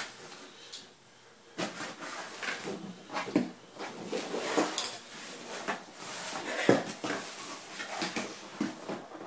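A cardboard box being set down and opened: irregular scrapes, rustles and light knocks of the cardboard flaps and lid, with one sharper knock about seven seconds in.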